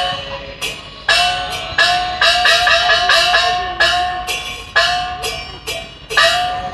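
Hokkien puppet-theatre percussion: gongs and cymbals struck in an uneven rhythm. Each hit rings with a note that bends in pitch, and the strikes come quicker for about a second and a half around the middle.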